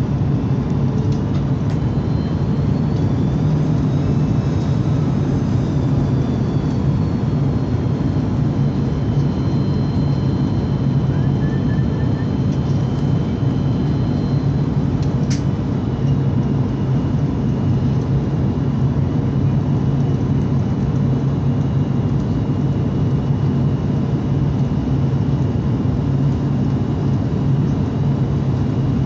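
Steady cabin noise of an Airbus A330 on approach: a loud, low drone of engines and airflow heard through the fuselage, with faint high engine whines that slide in pitch and then hold. A single short click sounds about halfway through.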